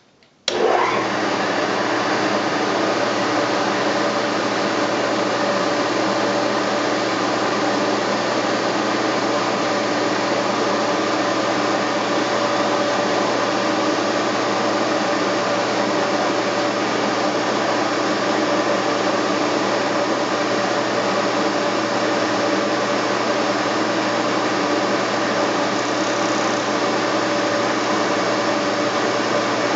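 Milling machine motor switched on about half a second in and then running steadily, a constant hum with a few fixed tones over a noisy rush.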